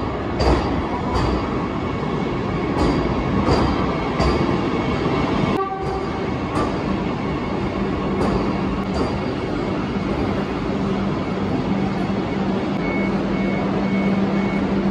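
Vande Bharat Express electric trainset rolling along the platform, its wheels clacking over rail joints. A steady low hum sets in about halfway through, and a repeated high beep starts near the end.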